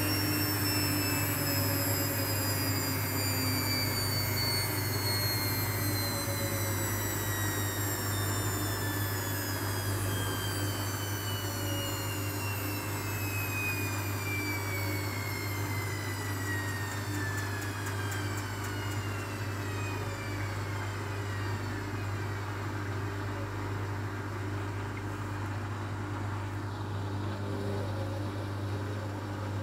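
Hotpoint WMA 30 front-loading washing machine winding down from its final spin. The motor's whine falls steadily in pitch over about twenty seconds as the drum slows, over a steady low hum.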